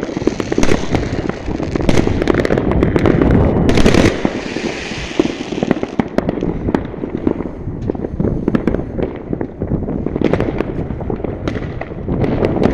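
Many fireworks going off at once over a town: a dense, continuous patter of bangs and crackles, with a louder bang about four seconds in followed by a couple of seconds of hissing crackle.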